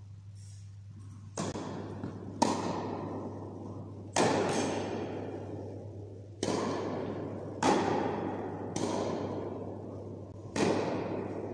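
Tennis balls being struck by rackets and bouncing on the court, about eight sharp pops one to two seconds apart. Each pop rings out in a long echo of the tennis hall.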